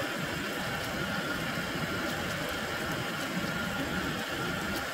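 Brass pressure camp stove burning with a steady hiss under a frying pan, with duck slices sizzling as they are stirred with chopsticks.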